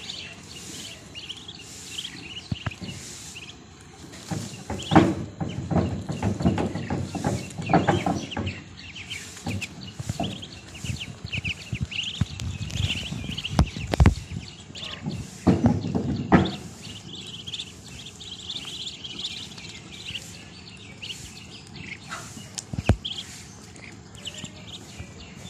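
A brood of ducklings peeping continuously in rapid, high chirps. Louder bursts of low scuffling noise come in twice, about five seconds in and again around fifteen seconds.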